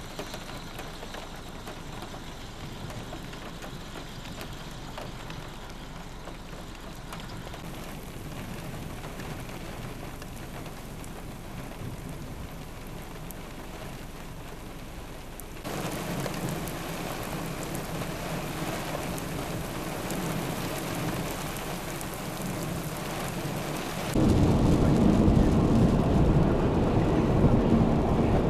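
Steady rain noise of a severe thunderstorm. It gets louder in two steps, about 16 seconds in and about 24 seconds in, and the last part is much louder and deeper.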